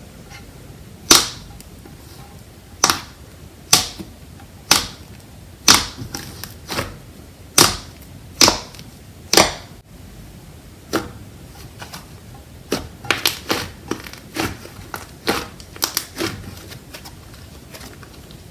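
Slime being poked and pressed, giving sharp pops and clicks. They come about once a second at first, then in quicker clusters near the end, over a steady hiss.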